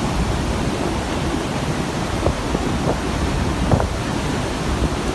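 Hurricane wind and storm-surge floodwater rushing through a street: a steady, loud rush of noise, with the wind buffeting the microphone. There are a few brief knocks in the middle.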